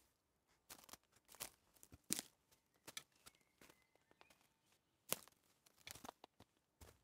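Footsteps on a dry forest floor: faint, irregular crunches and snaps of twigs, needles and leaf litter underfoot, roughly one every two-thirds of a second.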